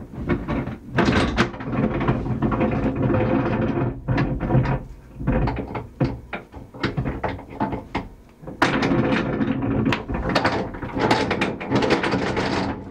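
Anchor rode being fed down into a sailboat's chain locker: continuous rubbing and scraping with frequent knocks as it slides in and piles up against the locker's sides.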